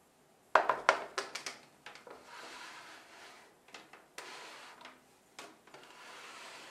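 Plastic cake plate being handled and turned on a wooden tabletop. There is a quick cluster of clicks and knocks about half a second in, then several stretches of rubbing and scraping, each about a second long, as the plate is rotated.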